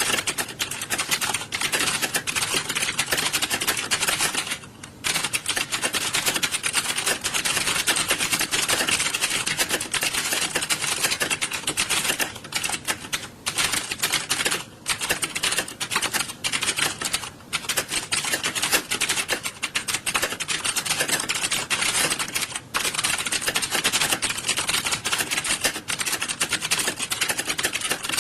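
Many computer keyboards being typed on at once, the sound of an exam hall during a typing test: a dense, continuous clatter of keystrokes with a few brief lulls.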